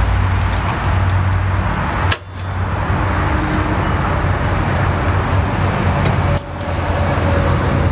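A steady low rumble, like a running vehicle engine, under two sharp clicks, about two and six seconds in, as locking pliers twist and pull a nail out of the trailer's underbelly.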